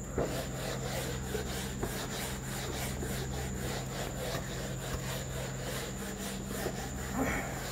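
Wooden-backed whiteboard duster rubbing back and forth across a whiteboard, wiping off marker writing in quick repeated strokes.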